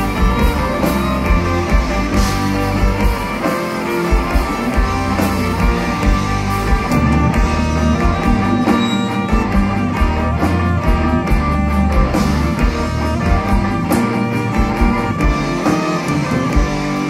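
Folk metal band playing live through a PA: fiddle and guitar over a steady beat.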